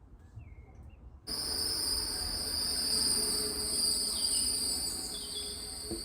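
A steady chorus of crickets, a continuous high-pitched trilling that starts abruptly about a second in, with a couple of faint short chirps partway through.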